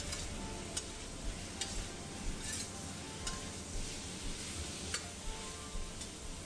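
Chicken pieces and ginger slices sizzling in a stainless steel wok as a spatula stir-fries them, with irregular scrapes and clicks of the spatula against the pan.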